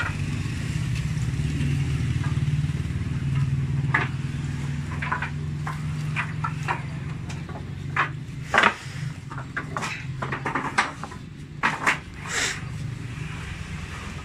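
Wooden boards knocking and clacking against each other as planks are pulled from a lumber rack, the loudest knocks about eight and twelve seconds in. Underneath runs a steady low engine hum, strongest in the first half.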